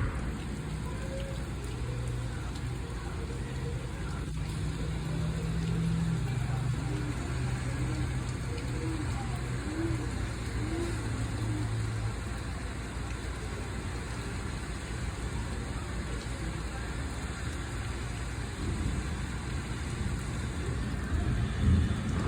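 Steady low hum of an idling car with rain falling, heard during a thunderstorm.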